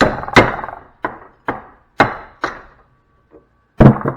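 A hammer striking a scrap fuse in quick blows: six sharp hits about half a second apart, a short pause, then one heavy hit near the end.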